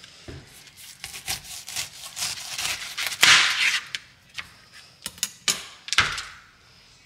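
Large chef's knife sawing through a whole pineapple's tough rind on a plastic cutting board: a run of crunching, scraping strokes, loudest about three seconds in. A few sharp knocks follow near the end.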